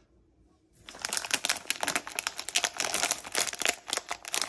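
Plastic candy wrapper crinkling and crackling in a rapid, irregular run, starting about a second in.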